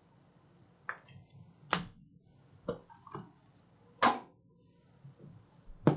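Trading cards and card boxes being handled on a tabletop: about six sharp taps and clicks spread over a few seconds, the loudest about four seconds in.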